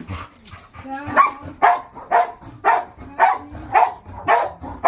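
A dog barking repeatedly in a steady rhythm, about two barks a second, starting about a second in.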